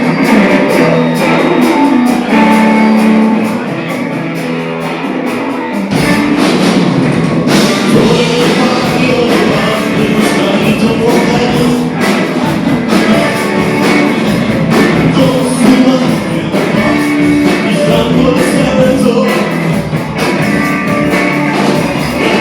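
Rock band playing live, with guitars and a drum kit. The low end fills out suddenly about six seconds in as the full band comes in.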